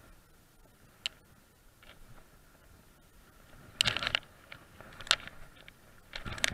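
Scattered sharp clicks and rustles of hands stripping and handling fly line and the rod: a single click about a second in, a close cluster a little before the middle, and more near the end.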